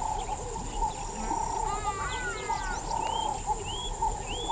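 Wetland chorus of insects and frogs: a steady high insect whine over many short repeated calls, with several short rising bird whistles through it.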